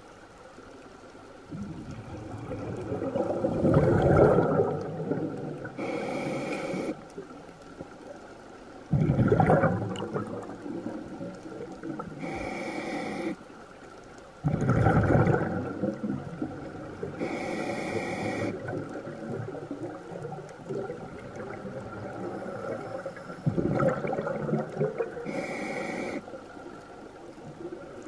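Scuba diver breathing through a regulator underwater: each inhalation is a short hiss through the demand valve and each exhalation is a longer bubbling rush, about four breaths in all.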